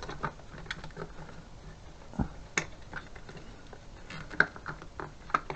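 Irregular small clicks and taps of a plastic motorcycle fuse cover and its parts being handled and fitted into place, the sharpest click about four and a half seconds in.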